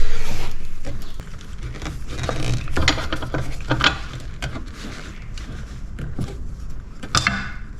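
Scattered light clicks and knocks of metal parts being handled as the rear brake caliper mount and ABS sensor are wiggled free on a Harley-Davidson Softail, with one louder knock right at the start.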